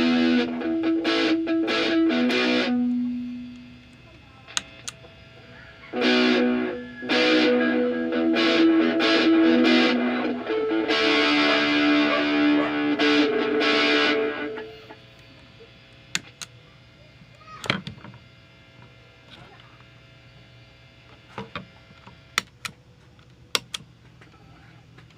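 Electric guitar played through a Mosky distortion pedal: distorted chords and notes that ring out and stop about three seconds in, start again about six seconds in, and stop near fifteen seconds. The rest is a low steady hum with a few sharp clicks.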